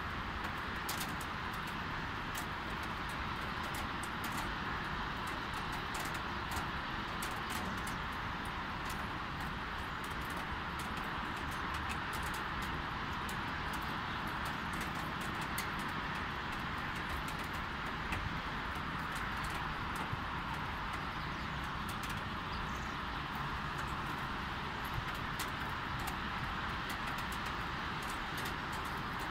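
Light rain falling: a steady hiss with scattered ticks of drops landing close by, over a distant hum of city traffic.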